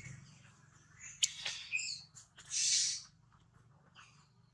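Short, high-pitched animal squeaks and chirps, a few scattered calls, with a sharp click just after a second in and a louder, hissy squeal about two and a half seconds in.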